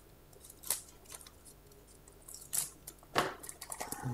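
Small scissors and a clear plastic cup of fishing flies being handled and worked open: a few scattered sharp clicks and snips, the clearest about a second in and again near the end, with faint plastic handling sounds between.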